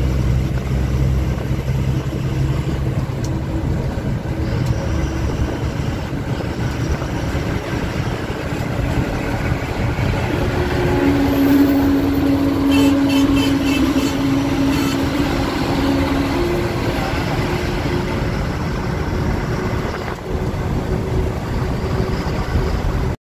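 Diesel engine of an Eicher coach bus running steadily at highway speed, with road noise, heard from inside the driver's cabin. Midway, a steady tone joins for several seconds. The sound cuts off abruptly near the end.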